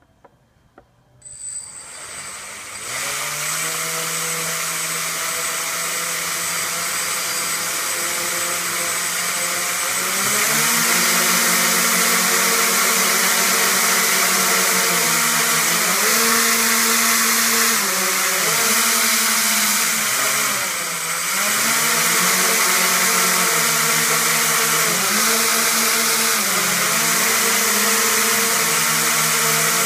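Quadcopter's electric motors and propellers spinning up about two seconds in, then running with a steady hum. The pitch steps up about ten seconds in, and in the second half it rises and falls again and again as the throttle is changed.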